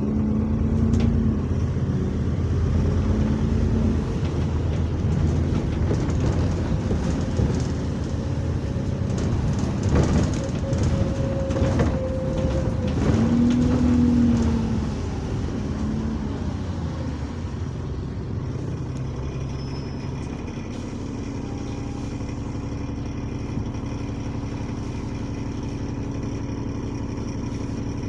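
Diesel bus engine heard from inside the passenger saloon, its pitch rising and falling a few times as the bus pulls along and eases off. About twenty seconds in it drops to a steady, quieter idle as the bus stands. The engine has a leaking turbocharger.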